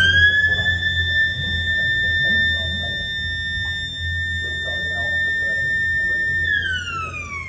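A siren rises quickly to a steady high pitch and holds it for about six seconds, then winds down in a long falling glide near the end.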